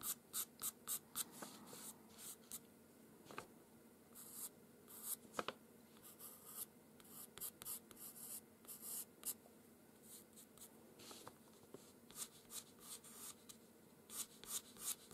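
Pastel pencil scratching on paper as fine, curved fur strokes are drawn: faint, quick strokes in short runs with brief pauses between them.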